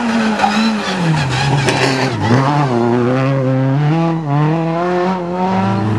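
Rally car engine at high revs through a bend. The revs drop about a second in, then rise and fall several times as the car accelerates away.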